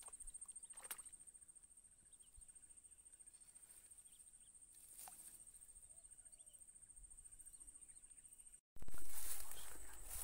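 Quiet open-air marsh ambience with a steady high-pitched trill and a couple of faint clicks. Near the end the sound cuts out for a moment and comes back as a louder rush of noise on the microphone that slowly dies down.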